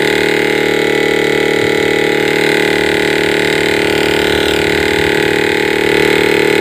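LG inverter refrigerator compressor, its outer shell opened so the motor and pump are bare, running steadily in test mode off the inverter PCB: a loud, even, many-toned hum. It is running because the board's test button forced it on.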